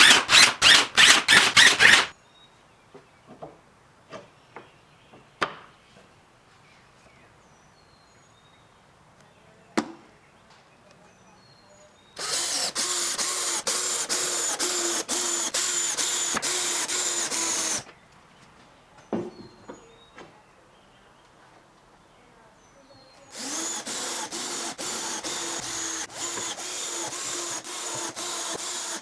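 A quick run of about eight loud strokes, then a power tool running steadily twice: once for about six seconds near the middle and again from about two-thirds of the way in to the end. Scattered light knocks fill the quieter stretches between.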